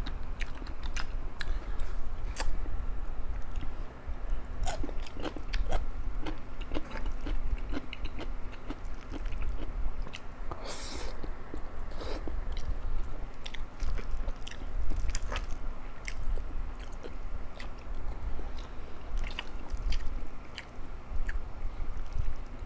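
A person eating close to the microphone: irregular chewing and biting sounds with crunches as food is bitten, and a brief louder crunch or slurp about eleven seconds in. A faint steady hum runs underneath.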